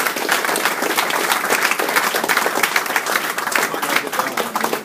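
A group of people applauding: dense, steady hand-clapping.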